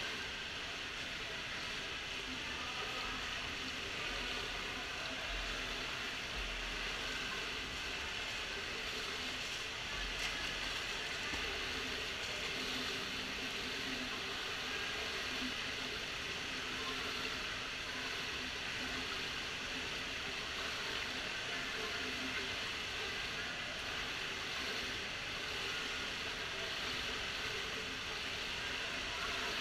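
Steady indoor swimming-pool ambience: a continuous water-like hiss with a low steady hum underneath.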